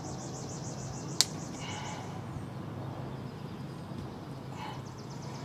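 Quiet outdoor background with a fast, high-pitched chirping trill that comes and goes, and one sharp click about a second in.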